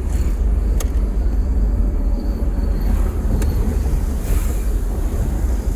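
Steady low rumble of vehicles moving at speed, with two short sharp cracks about a second in and again about three and a half seconds in.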